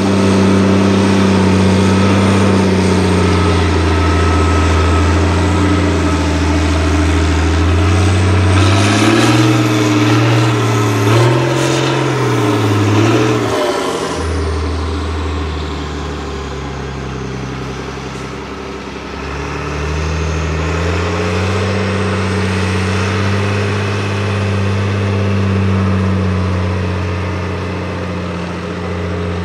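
Six-wheel-drive trial truck's heavy engine working hard: its pitch climbs as it revs from about eight seconds in, drops back at about fourteen seconds, then rises again and holds steady.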